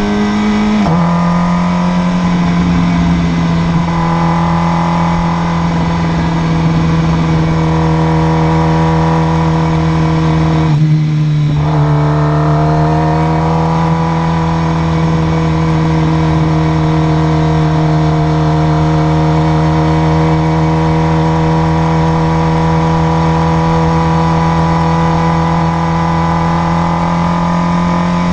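Motorcycle engine running at highway cruising speed over a steady rush of wind and road noise. The engine note steps down slightly about a second in. Around eleven seconds in it eases off and breaks briefly, then climbs back up as the bike pulls again.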